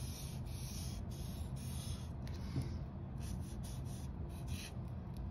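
Black felt-tip marker drawing on paper: a run of short scratchy strokes as grass blades are sketched in.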